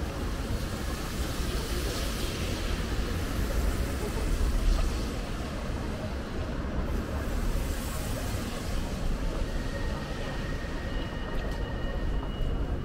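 City street ambience on a wet night: a steady rumble of traffic with the hiss of passing vehicles on a wet road, swelling twice, and a murmur of voices. Two faint steady high tones come in near the end.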